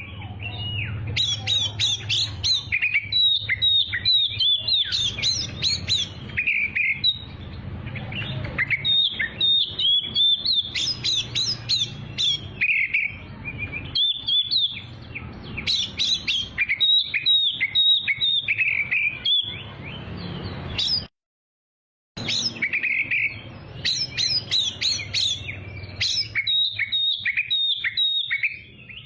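Oriental magpie-robin (kacer) singing a fast, varied song of whistles, trills and chirps, with a brief total break about 21 seconds in.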